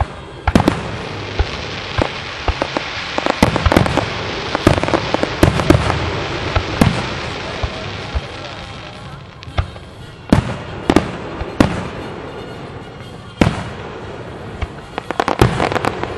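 Aerial fireworks shells bursting: a dense volley of sharp booms with crackling through the first seven seconds or so, then single booms spaced about a second apart, and another quick cluster near the end.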